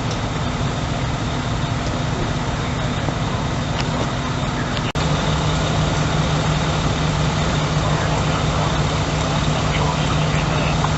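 Steady low drone of an idling truck engine. It breaks off for an instant about five seconds in, and the hum is a little louder after the break.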